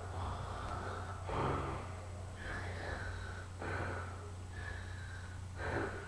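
A person breathing heavily close to the microphone, roughly one breath a second, over a steady low hum.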